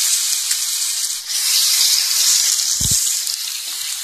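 Ginger-garlic paste sizzling loudly in hot ghee and coconut oil in a frying pan, a steady hiss. There is a brief low thump about three seconds in.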